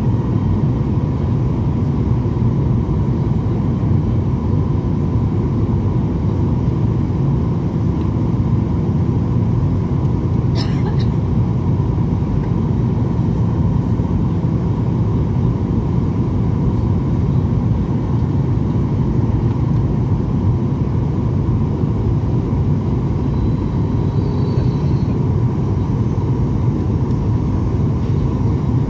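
Steady low rumble of strong wind buffeting the microphone, with a faint steady high whine underneath and a single short click about ten seconds in.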